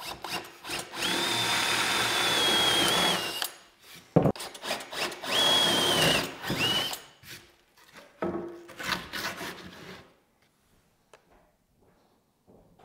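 Festool cordless drill boring 3/4-inch holes through a wooden board with a Forstner bit: a steady whine for about two and a half seconds starting a second in, then a second run of about a second and a half around five seconds in. A few knocks and clicks of handling follow.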